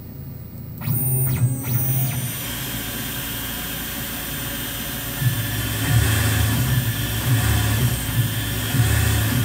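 Tormach PCNC 770 CNC mill turning brass bar stock held in its spindle: the machine starts up sharply about a second in and settles into a steady hissing noise as the tool cuts. From about five seconds in, a louder, uneven low hum joins it.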